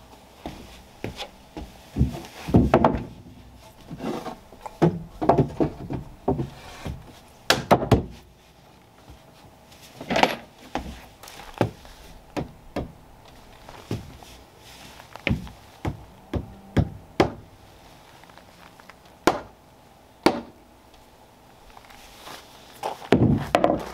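Framing hammer knocking a beveled 2x4 sill plate into place on a wooden floor deck: irregular wooden knocks and thuds, some single, some in quick runs, with footsteps on the deck.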